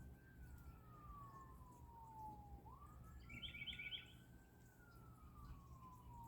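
Faint, far-off emergency vehicle siren on a slow wail, its pitch rising quickly and then sliding down over a few seconds, twice. A bird gives a short run of high chirps about halfway through.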